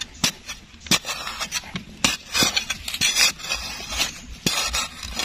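A digging tool striking and scraping into soil while a cricket burrow is dug out: irregular sharp knocks mixed with gritty scrapes.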